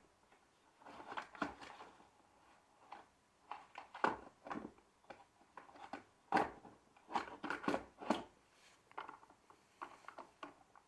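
Irregular clicks and knocks from handling a vacuum cleaner's wiring and connectors during multimeter testing, the sharpest ones about 4, 6.5 and 8 seconds in.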